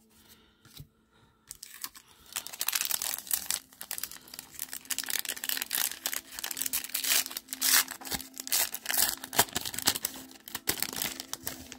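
Foil wrapper of a Topps trading-card pack crinkling and tearing as it is pulled open by hand. It is a run of crackly rustles that starts about two seconds in.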